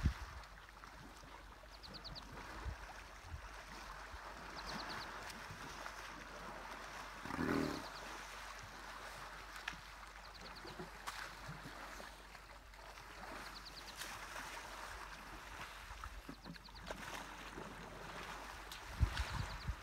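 Water sloshing and splashing as a group of African elephants wade and swim. A bird repeats a short trill of a few quick high notes about every three seconds.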